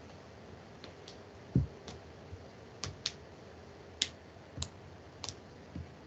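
Irregular clicks and taps at a computer desk, about ten in six seconds, with a few low thumps; the loudest is a thump about a second and a half in.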